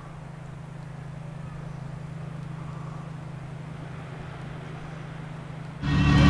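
Boat engine running with a steady low hum; near the end the sound jumps suddenly to a much louder engine noise.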